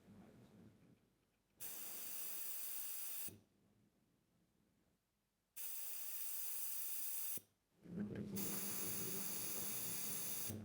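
Three separate bursts of steady hissing, each lasting under two seconds, with silence between them; a low hum sits under the last one.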